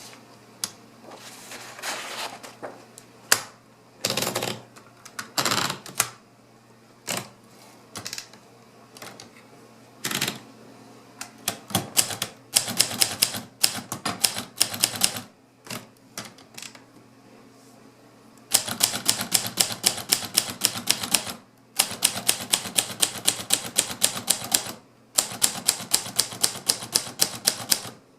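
Hermes 3000 manual typewriter: scattered key clicks and a few longer rasping strokes at first, then typing in quick runs of keystrokes, several seconds at a time with short breaks.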